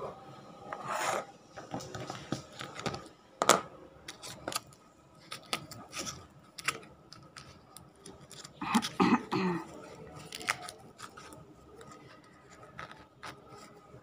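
A foil medicine sachet and a plastic bag clip being handled: scattered crinkles, rubs and sharp plastic clicks, the loudest click about three and a half seconds in, with a brief pitched sound about nine seconds in.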